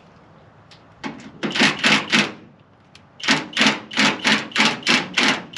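Hammer blows in two runs: about five, then after a short pause about eight more, roughly three a second, each with a short ring.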